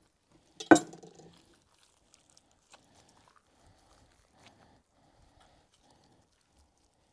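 A metal knife set down on a wooden cutting board with a sharp knock under a second in, followed by faint wet squishing as gloved hands fold and turn a raw beef rump roast inside out.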